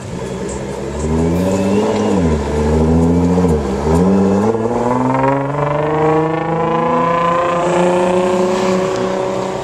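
Supercar engine accelerating hard: its pitch dips sharply twice, about two and four seconds in, then climbs steadily through the rest of the run.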